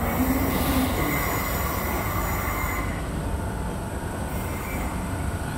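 Athens Metro Line 1 8th-generation electric train braking alongside the platform, its wheels and brakes squealing in several held high tones over a steady rumble. The squeal dies away about three seconds in as the train slows to a stop, leaving a lower rumble.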